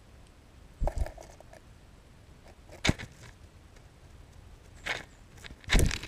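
A few short, sharp taps and scrapes, scattered a second or two apart with the loudest near the end: a sparrow pecking and hopping in snow and seed close to the microphone.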